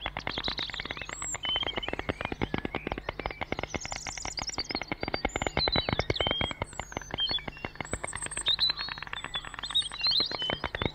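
White storks clattering their bills: a fast, unbroken rattle of clacks that swells louder in the middle and again near the end.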